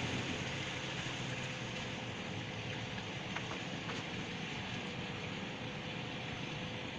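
Steady drone of a small boat's engine running as it cruises along, mixed with water and wind noise.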